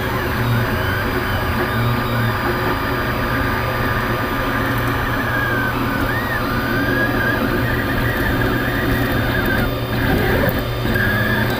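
Anycubic Kossel delta 3D printer printing: its stepper motors whine in pitches that keep rising and falling as the arms move the print head, over a steady low hum.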